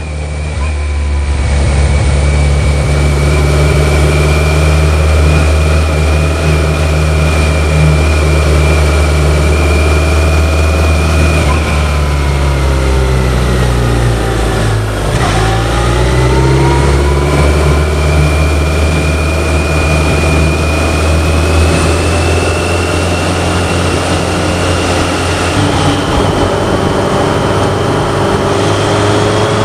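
BMW K1100LT's inline four-cylinder engine and wind noise heard from the rider's seat while riding. About halfway through, the engine note drops as the bike slows, then rises again as it accelerates away, climbing on towards the end.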